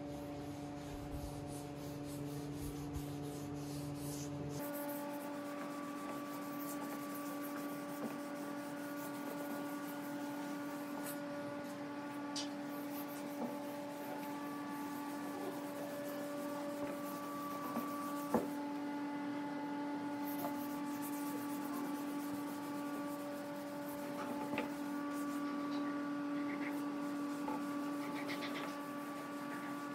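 Cloth rag rubbing and wiping wood stain into a bare pine tabletop, a steady scrubbing friction with small ticks, over a steady background hum.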